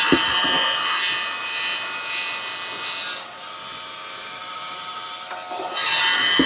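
Cheap hardware-store heat gun running, a steady whine over rushing air, shrinking heat-shrink wire connectors; it sounds awful. It drops quieter a little after three seconds in and comes back up near the end.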